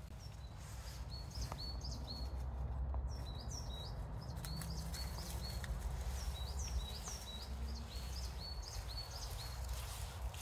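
Small birds chirping, short high notes repeated many times, over a steady low rumble.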